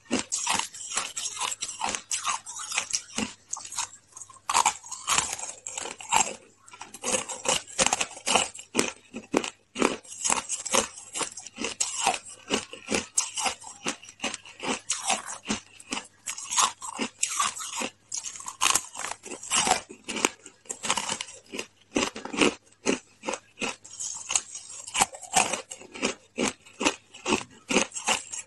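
A person biting and chewing chunks of hard, frosty ice: a fast, dense run of sharp crunches with only brief pauses between bites.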